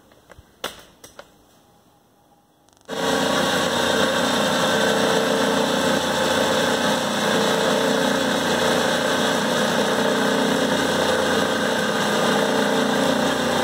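A couple of faint clicks, then about three seconds in the Clausing 5914 lathe's motor and Reeves variable-speed belt drive come in suddenly, running steadily.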